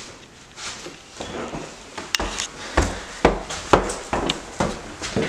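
Footsteps climbing wooden stairs: a steady series of thuds about every half second, starting about two seconds in after a single sharp click.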